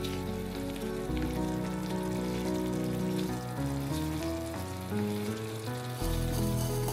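Background music plays a melody of held notes over a bass line. Under it, a masala of chicken pieces, tomato and oil sizzles and crackles as it fries in a pan.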